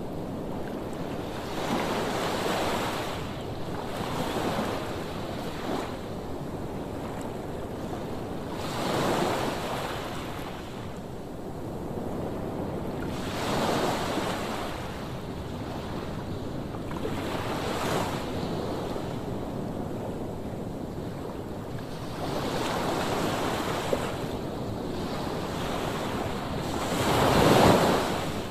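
Sea waves surging and breaking on the shore, swelling about every four to five seconds, the biggest one near the end, with wind in the background.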